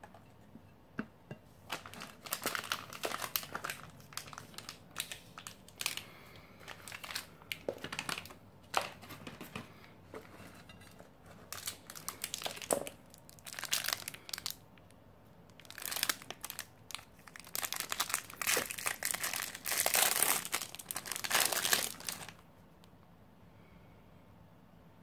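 Plastic food packaging crinkling in the hands in bursts, then a protein bar's foil-plastic wrapper being torn and peeled open, the loudest and longest crinkling near the end before it stops.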